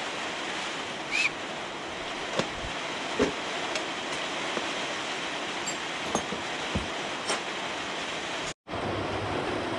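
Scattered knocks and clinks of tools and chainsaw parts being moved about on a workbench over a steady hiss, with a sudden break in the sound near the end.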